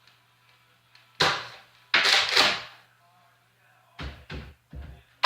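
Nerf foam-dart blaster shots: a sharp pop about a second in, then two more in quick succession about two seconds in, followed by a few softer thumps near the end.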